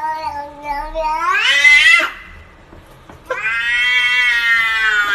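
A cat yowling twice. The first long call rises in pitch at its end, and after a pause of about a second a second long call holds, then slowly falls.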